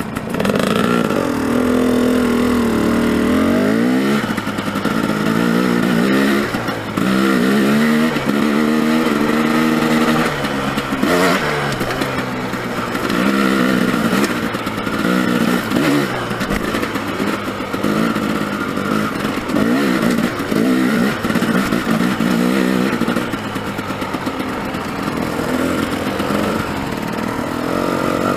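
Dirt bike engine running hard, its pitch rising and falling again and again with the throttle as the bike is ridden up a rocky wash.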